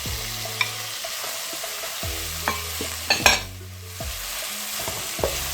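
Onions and peppers sizzling in hot olive oil in a wok as they are stir-fried, with a few sharp knocks of the utensil against the wok, the loudest about three seconds in.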